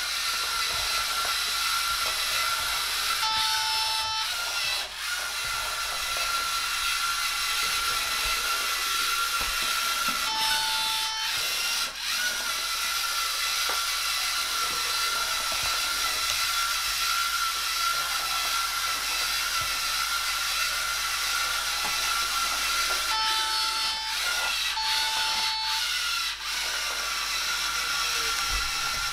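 Small LEGO Mindstorms robot's electric motors and gears whining steadily as it drives. The brick gives a short beep four times, two of them close together late on, and the whine briefly stops around each beep. A few sharp clicks come as the motors stop and start.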